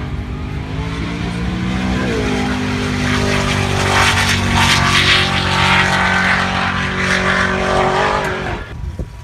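High-performance car engine at full throttle, running hard down the runway and passing. Its pitch dips briefly about two seconds in. It is loudest around the middle and falls away sharply near the end.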